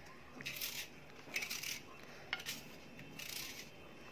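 Small kitchen knife cutting and scraping through a hand-held onion: quiet, crisp strokes about once a second, with one sharp click a little over two seconds in.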